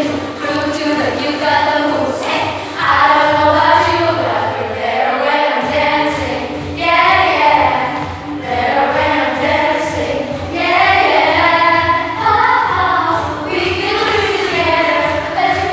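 A group of children singing a song together over backing music with a steady beat.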